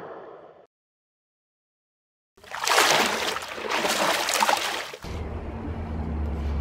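The tail of a whoosh fades out, then after a moment of silence a splashing water sound effect plays for about two and a half seconds. A steady low hum follows from about five seconds in.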